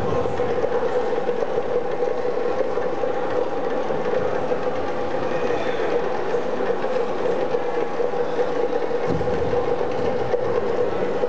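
Steady background noise with a constant hum running through it and no distinct events.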